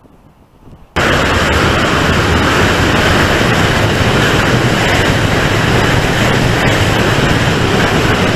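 Loud, steady wind rush on the microphone of a camera riding on a Cravallo SL flying-wing glider in flight. It cuts in abruptly about a second in.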